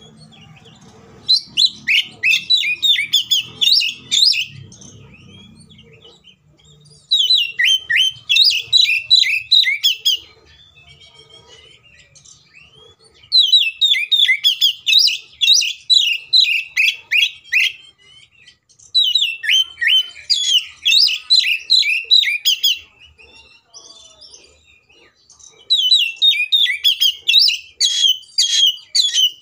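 Oriental magpie-robin (kacer) singing in an aggressive 'fighting' mood: loud bursts of rapid, sharp, high repeated notes in five bouts of a few seconds each, with short pauses between.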